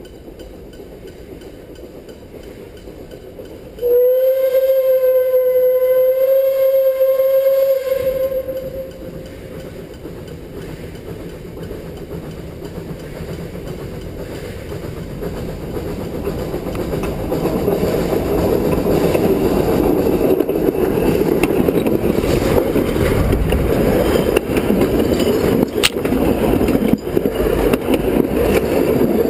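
Puffing Billy narrow-gauge 2-6-2T steam locomotive 6A sounds one long steady blast on its steam whistle, starting about four seconds in and lasting about four seconds. The train's running noise then grows steadily louder as it approaches, until its wheels are rolling on the rails directly overhead near the end.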